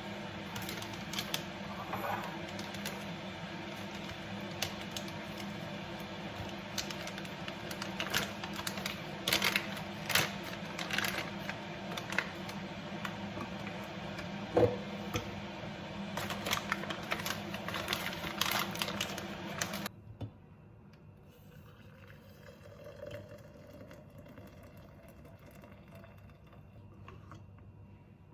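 Irregular light clicks and taps over a steady hum. About 20 s in they cut off to much quieter room tone.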